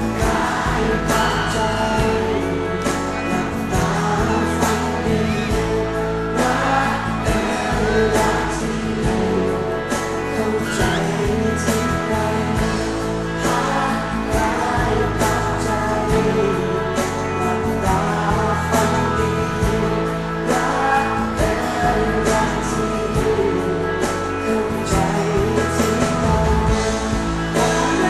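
Live pop song: voices singing a melody over a band accompaniment with a steady bass line.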